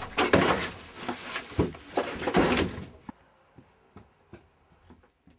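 Scuffle in a wooden shed doorway: a rapid run of knocks and thuds over rustling, which cuts off suddenly about three seconds in. After that only a few faint clicks remain.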